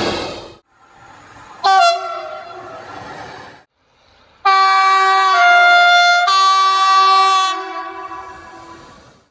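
Train air horn blasts. A short blast whose pitch slides down is followed by a long, loud multi-tone horn chord lasting about three seconds, which shifts notes partway through and then fades away.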